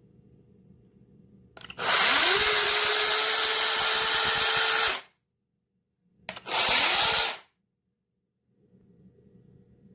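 Cordless electric mini chainsaw run twice with no load. The motor whines up to speed within about half a second and runs steadily for about three seconds, stops, then gives a second, shorter burst of about a second.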